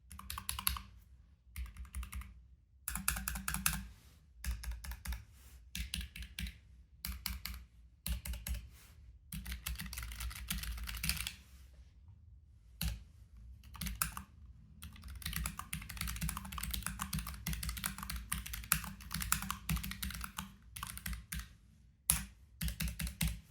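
Typing on a Keychron K7 low-profile mechanical keyboard with Gateron brown switches. Key clicks come in quick runs broken by short pauses, with the longest unbroken run in the second half.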